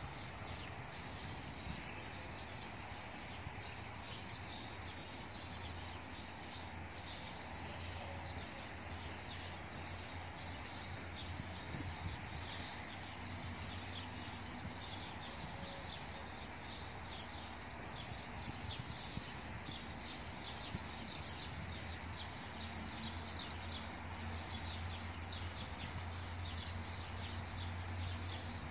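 A bird calling a short high chirp again and again at an even pace, about three chirps every two seconds, over a steady low hum of outdoor background noise.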